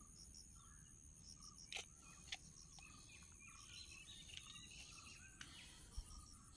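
Near silence: faint steady insect chirring, with a few faint bird chirps and three soft clicks.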